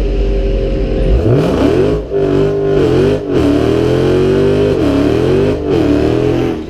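A car engine idling, then revved up and down repeatedly from about a second in.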